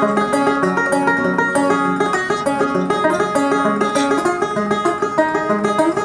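Banjo played solo: a steady stream of plucked notes over a repeating low note.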